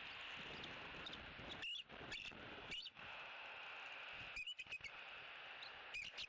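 Bald eagle calling: short, high-pitched chittering notes in three bouts about a second and a half apart.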